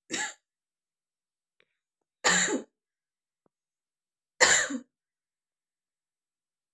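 A man's short, harsh coughs or throat-clearing bursts, three of them about two seconds apart, the first weakest and the last loudest.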